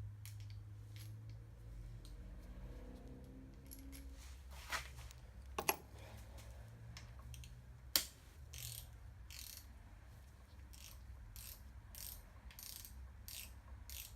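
Hand tools working on a dirt bike: a few sharp metal clicks and knocks, then a run of short rasping strokes about two a second, a socket ratchet being worked back and forth on a bolt.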